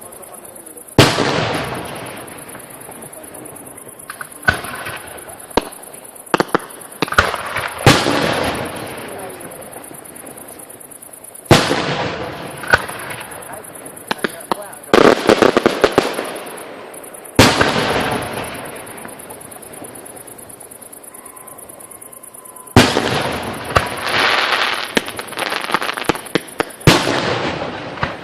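Fireworks display: aerial shells bursting with sharp bangs every few seconds, each trailing off in a fading rumble, with runs of fast crackling in between.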